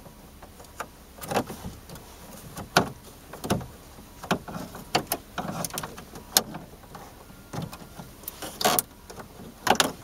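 A plastic panel-remover trim tool prying at the plastic bezel around the ignition switch of a 2000–2005 Chevy Impala. It makes irregular sharp clicks and short scrapes, about a dozen of them, as plastic catches and snaps against plastic.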